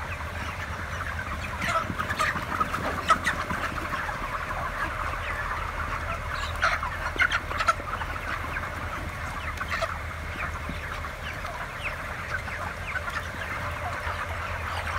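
A large flock of 33-day-old broiler chickens calling together: a dense chatter of many short cheeps, with a few louder calls standing out about two to three seconds in and again around seven seconds. A steady low hum from the house's ventilation fans runs underneath.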